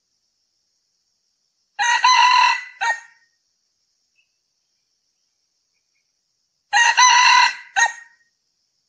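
Male red junglefowl crowing twice, about five seconds apart. Each crow is a longer main note followed by a short, clipped final note.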